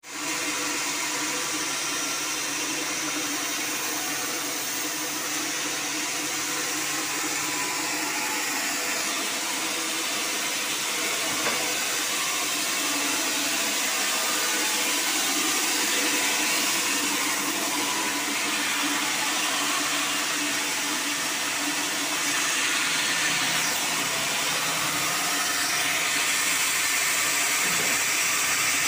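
Steady machine noise, likely sawmill equipment running: an even hiss with a faint low hum under it, with no distinct strokes or cuts.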